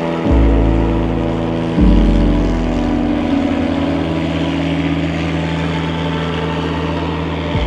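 Small single-engine floatplane's piston engine and propeller running at full takeoff power as it skims across the water and climbs away: a steady, loud drone with a hiss over it, jumping abruptly in pitch and loudness shortly after the start and again near two seconds.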